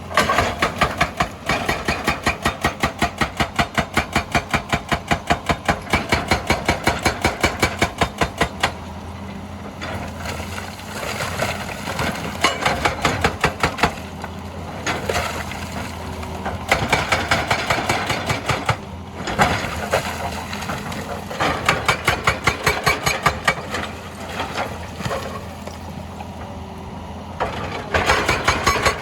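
Hydraulic rock breaker on a Hitachi EX200 excavator hammering rock in rapid, even blows, about six a second. It stops and restarts several times, and in the short pauses the excavator's diesel engine is heard running.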